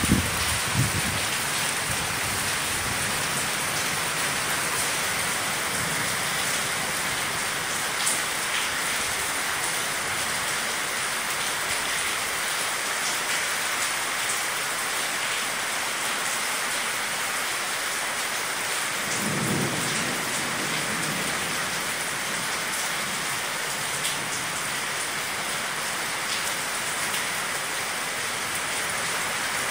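Steady downpour of rain hissing on the street and pavement. Near the start there are a couple of sharp knocks, and about two-thirds of the way through there is a brief low rumble.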